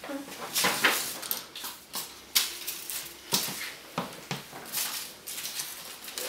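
Folded paper slips rustling and sliding across a wooden floor as hands spread them out, with a few sharp taps among the rustles.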